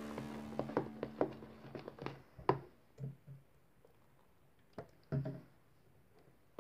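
Green slime being squeezed and poked by hand, giving irregular small sticky clicks and pops, the loudest about two and a half seconds in and again about five seconds in, with a quiet gap between. The tail of a music track fades out in the first couple of seconds.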